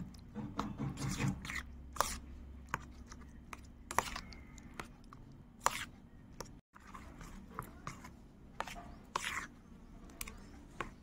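Metal spoon stirring sago pearls and milk in a steel plate: soft wet scraping with irregular clinks of the spoon against the metal.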